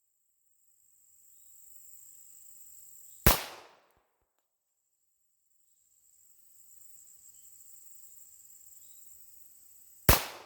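Two .45 ACP pistol shots from a Springfield Armory 1911, the first about three seconds in and the second near the end, each a sharp crack with a short fading tail.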